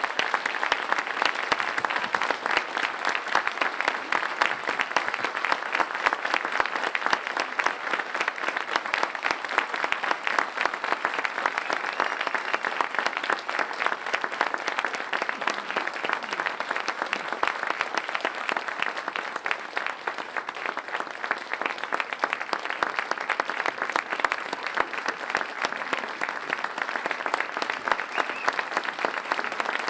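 Large audience applauding: dense, even clapping from many hands that holds steady without a break.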